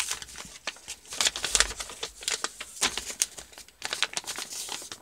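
A sheet of paper being folded and creased by hand, with irregular short rustles and crackles of the paper.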